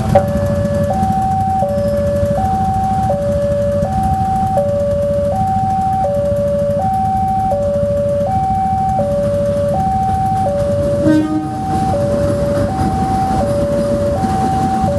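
Railway level crossing warning alarm sounding a steady two-tone high-low signal, each tone lasting about three quarters of a second, warning that a train is approaching. Under it runs a low traffic rumble, with a brief louder sound about eleven seconds in.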